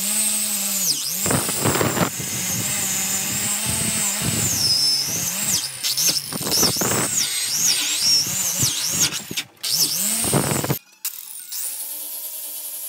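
Angle grinder with a wire wheel brush scrubbing rust off a steel hammer head, its high whine wavering as the brush bites and scrapes. After a short break about eleven seconds in, the grinder runs again with an abrasive disc, grinding the hammer's claw with a steadier whine.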